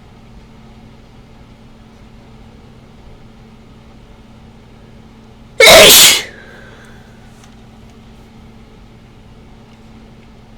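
A single loud, explosive human sneeze about halfway through, lasting about half a second, brought on by sniffing ragweed dusted with chhinkni sneezing powder.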